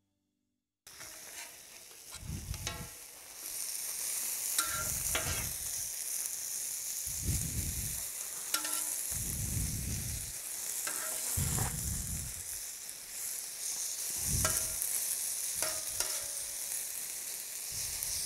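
Marinated chicken breast strips sizzling on a hot steel plancha, starting about a second in, with a steady hiss. Short clicks and scrapes of a metal spatula on the plate as the strips are turned, along with a few dull low thumps.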